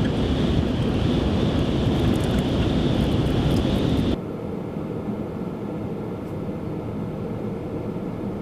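Road and engine noise inside a moving pickup truck's cabin, a steady rumble. About four seconds in it drops abruptly to a quieter steady hum.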